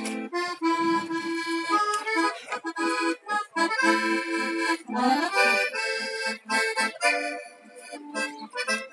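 Accordion playing a melody with chords, with a quick upward run of notes about five seconds in.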